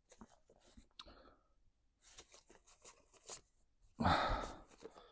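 Faint rustles and small clicks of loose junk being handled and sorted out of an old car's interior, then a short, louder rush of noise about four seconds in.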